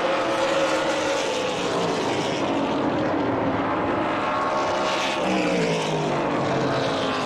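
Super late model stock cars' V8 engines running on the oval, a few cars passing with their pitch sliding downward as they go by and ease off.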